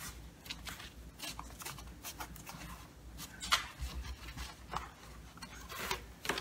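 Cardboard shipping box being creased and folded by hand along a scored seam: scattered light scrapes and rustles of cardboard, with louder scrapes about three and a half seconds in and just before the end.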